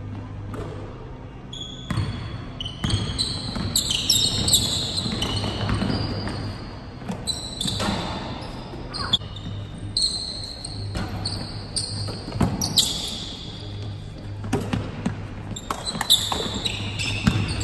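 Pickup basketball game on a hardwood gym court: the ball bouncing and thudding at irregular moments, with short high sneaker squeaks, over a steady low hum.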